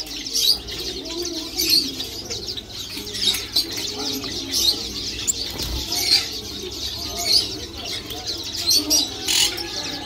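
Many caged exotic finches chirping at once: short high calls scattered throughout, over a lower wavering call and a steady hum.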